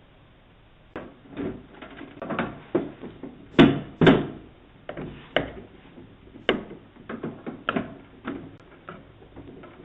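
Irregular knocks and bangs of a mailbox being pried and jimmied open, starting about a second in; the two loudest come about half a second apart near the middle. Heard through a doorbell camera's microphone.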